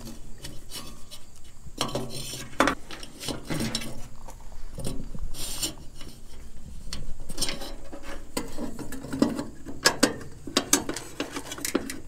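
Hands at work on truck wiring and plastic headlight plugs: irregular rubbing, scraping and clicking.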